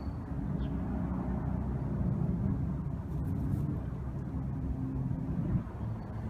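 Low, steady engine hum of a motor vehicle running.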